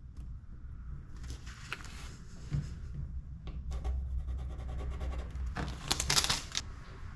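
Hand work with tape and a pencil on fibreglass while marking out a drill spot: scattered scratches and rapid rubbing strokes, then a louder scratchy burst lasting about a second near the end, over a steady low hum.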